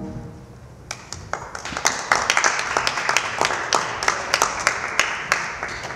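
A small audience applauding, starting about a second in, with single claps standing out, thinning toward the end.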